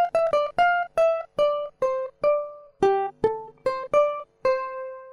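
Background music: a melody of single plucked-string notes, about two to three a second, ending on a longer held note near the end.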